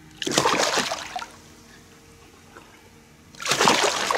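Two splashes of water at the side of the boat, about three seconds apart, as a large mandarin perch held at the surface thrashes and is let go.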